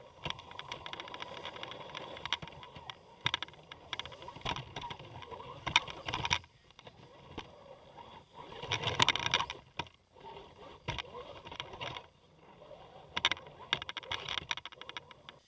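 Radio-control scale rock crawler's electric motor and gears whining in spurts, with clicks and scrapes as it works over the rocks; the whine stops briefly several times, with its loudest stretch a little past halfway.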